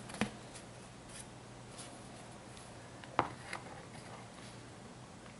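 Faint clicks and scratching of plastic being handled as a fingernail picks at the protective film on an acrylic panel. Two sharper clicks stand out, one just after the start and one about three seconds in.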